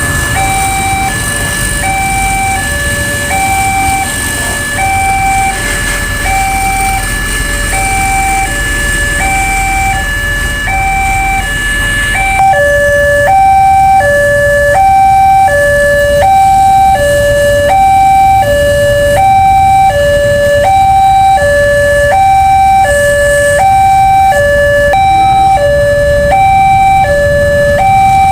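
Railway level-crossing warning alarm sounding a steady two-tone hi-lo pattern, about one cycle a second, which gets louder about twelve seconds in. Traffic rumbles underneath.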